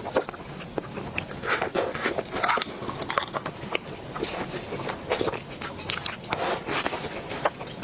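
Close-miked eating sounds: chewing with irregular wet mouth clicks and smacks, following one another at an uneven pace.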